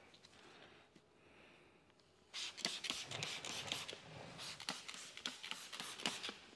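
Trigger spray bottle squirting slip solution onto the adhesive side of paint protection film and the bumper: a quick run of short sprays that starts about two seconds in, after near silence.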